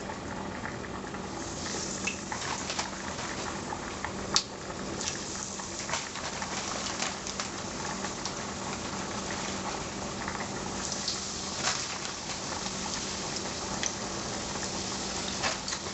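Cornmeal-coated catfish pieces frying in hot vegetable oil in a skillet: a steady sizzle with scattered pops and crackles, which picks up a couple of seconds in as the pieces go into the oil.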